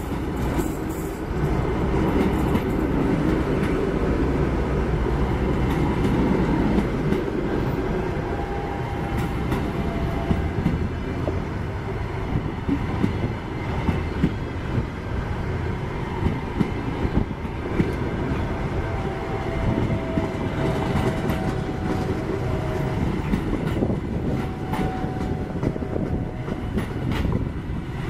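Russian Railways passenger coaches rolling past at speed: a steady rumble of wheels on rail, with repeated clicks as the wheels cross rail joints, thickest in the second half, and a few brief faint squeals from the wheels.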